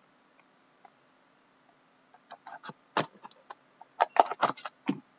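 Scattered sharp clicks and crackles of a hobby knife slitting the plastic shrink wrap on a sealed cardboard card box. They start about two seconds in and get louder and more frequent about four seconds in.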